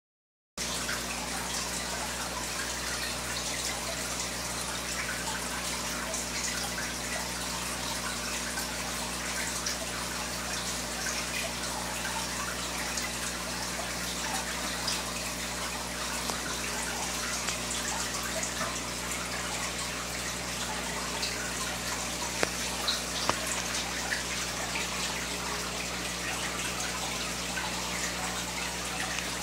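Aquarium bubble curtain bubbling and trickling steadily as streams of air rise and break at the surface, over a steady low hum. Three sharp ticks come a little past two-thirds through.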